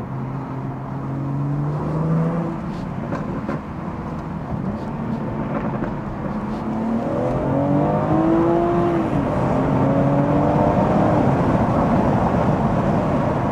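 2018 BMW M240i's turbocharged 3.0-litre straight-six with a Scorpion OPF/resonator-delete exhaust, heard from inside the cabin over road noise. The car cruises at first, then accelerates from about six seconds in: the engine note climbs in pitch and gets louder, dips briefly, then climbs again.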